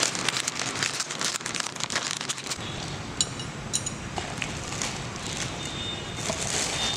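Crackling and clicking for the first couple of seconds, then a glass pot lid set onto a cooking pot with two ringing clinks about three seconds in, over a steady hiss.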